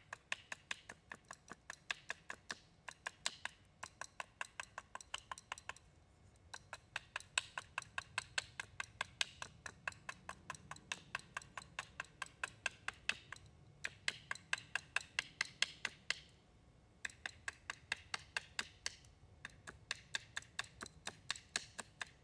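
Silver Fox Bushcraft Knife taking quick short cuts into a wooden spoon blank, a sharp tick with each stroke at about five a second, in runs of a few seconds with brief pauses.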